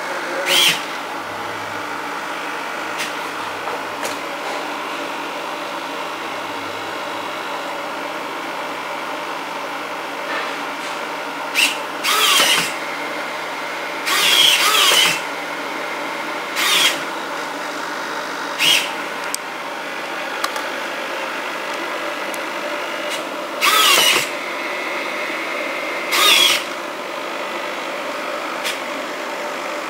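Servo motors of a 3D-printed InMoov robotic hand whirring in short bursts, about nine times, each lasting under a second or so, as the fingers open and close. A steady background hum runs under them.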